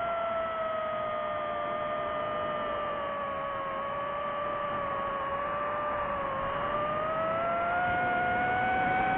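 DJI FPV drone's motors and propellers whining in flight, the pitch dipping a little as throttle eases and rising again near the end.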